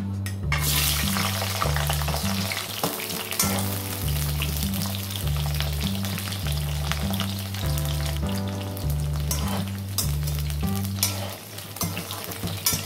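Cauliflower florets dropped into hot oil in a metal kadhai, sizzling as they fry from about half a second in, with a slotted spatula scraping and clinking against the pan as they are stirred. Background music with a steady bass line plays underneath.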